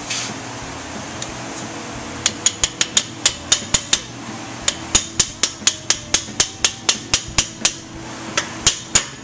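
A red mallet striking a steel bearing driver in quick, sharp taps, about four to five a second in three runs with short pauses between them. It is driving a freezer-chilled cam bearing into its bore in a Harley-Davidson Twin Cam engine's cam chest, and a change in the tap noise is the cue that the bearing is fully seated.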